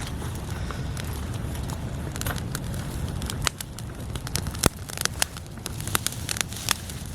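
Small stick campfire crackling, with irregular sharp snaps and pops that come thicker in the second half, over a steady low rumble.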